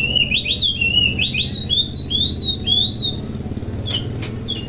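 Oriental magpie-robin singing a fast run of whistled notes that rise and fall, for about three seconds, followed by a few sharp ticks, over a steady low hum.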